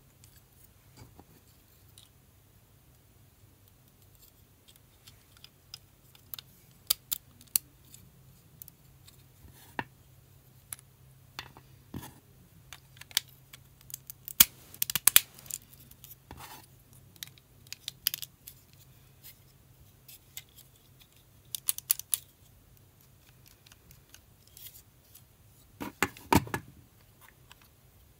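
LEGO Technic plastic beams and pins being handled and pressed together, giving scattered sharp clicks and snaps in irregular clusters. The loudest clusters come around the middle and near the end.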